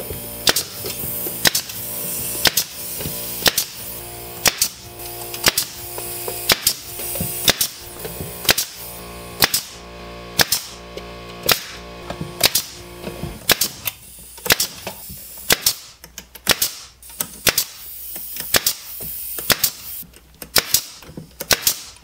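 Background music with a steady beat that drops out about two-thirds of the way through, followed by a pneumatic nail gun firing a quick, irregular run of sharp shots into the wood.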